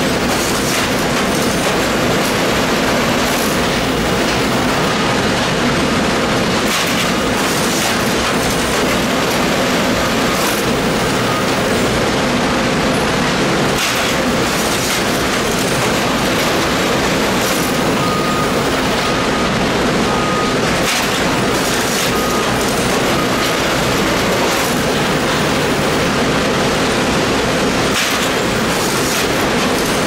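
Two-ram scrap baler running under load as its ejection ram slowly pushes a finished cardboard bale out of the chamber: a steady, loud hydraulic drone with occasional sharp cracks and creaks.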